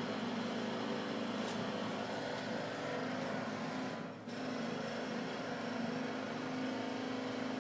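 Pneumatic jackhammer hammering steadily on the street, a dense rapid racket that breaks off for a moment about four seconds in and starts again.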